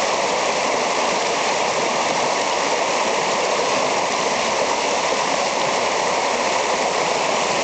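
Shallow river rushing over a stony riffle: a steady, even rush of water.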